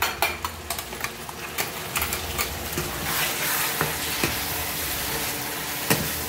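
Ground masala paste and sliced onions frying in hot oil in a pan, stirred and scraped with a silicone spatula: scrapes and clicks at first, then a steady sizzle that swells from about three seconds in. A single sharp knock of the spatula on the pan near the end.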